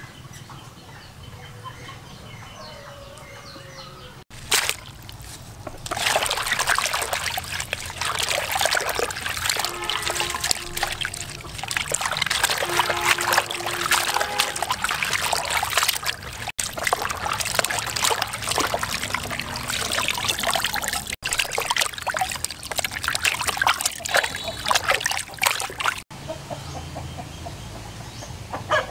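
Hands washing winged beans in a plastic basin of water: loud splashing and sloshing that begins about six seconds in and runs in several cut-together stretches.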